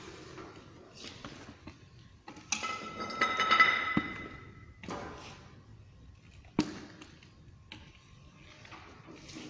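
Handling sounds from moving mixed feed dough into a bucket: a ringing, scraping clatter about two and a half seconds in that ends in a knock, then another sharp knock a little later, with small knocks between.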